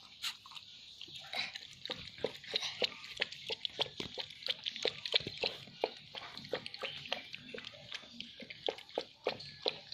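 A dog lapping from a bowl, with quick wet laps about four times a second.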